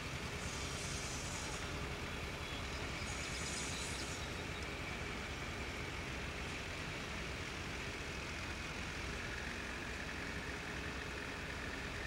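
A distant 70-ton mobile crane's engine running steadily, with two brief hisses near the start and about three seconds in.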